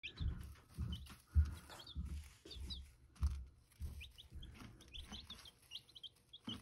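Baby chicks peeping: many short, high cheeps scattered throughout. A few dull low thumps, the loudest about a second and a half in, sound beneath them.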